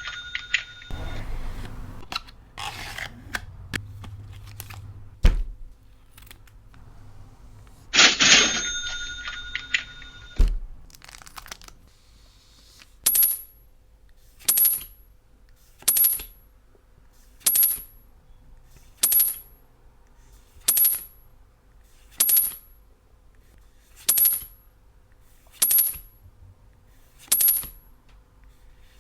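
Edited-in sound effects: a bright ringing chime near the start and again about eight seconds in, then a run of identical short swishes, each ending in a high ring, about one every one and a half seconds.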